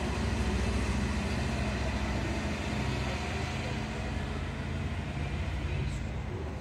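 Westfrankenbahn diesel multiple unit's engine running as the railcar moves off along the platform. It is a steady low hum that slowly grows quieter.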